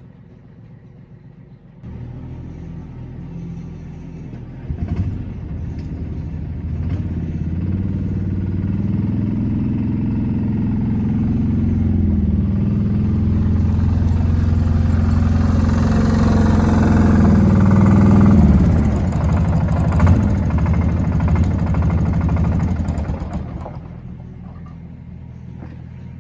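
Tractor engine running at a steady low note, growing louder as it draws near and dropping away near the end, with a couple of clunks along the way.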